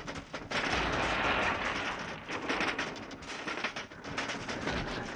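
A dense, rumbling noise packed with rapid cracks, a battle sound effect in an animated soundtrack.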